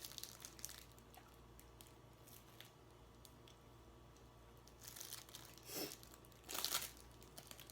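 Faint chewing and mouth clicks from someone eating Samyang spicy ramen noodles. There are a few short, louder noisy sounds about five seconds in and again near the end.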